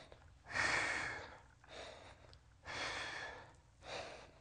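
A man breathing hard through repetitions of a dumbbell shoulder press: two longer, louder breaths about two seconds apart, each followed by a short, quieter one.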